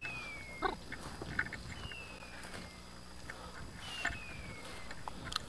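A high whistled call that falls steadily in pitch, three times about two seconds apart, each just under a second long. Snapping twigs and footsteps through dense brush run between the calls, the sharpest crack about a second and a half in.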